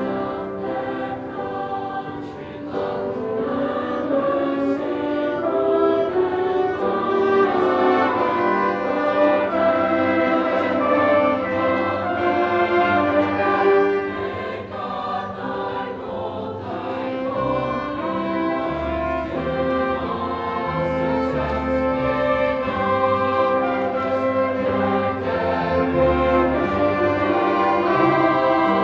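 Mixed choir singing with a live instrumental ensemble, including a double bass. Low bass notes grow stronger from a little past the middle.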